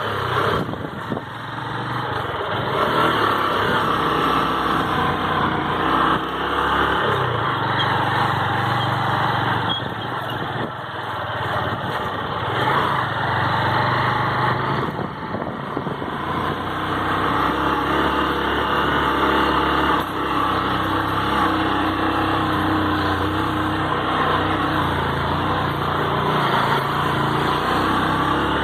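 Vehicle engine running while driving slowly over a rough road, its pitch rising and falling with the throttle, over steady road and wind noise.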